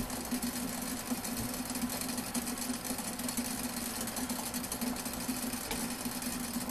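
Water coming to the boil in the glass flask of a tabletop electric distiller: a steady, rapid crackle of forming bubbles over a constant low hum.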